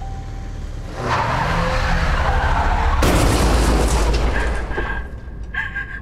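Crash-test car impact: a loud rushing noise with a low rumble starts about a second in, then a loud crash about three seconds in that dies away over a couple of seconds. A high steady ringing tone comes in near the end.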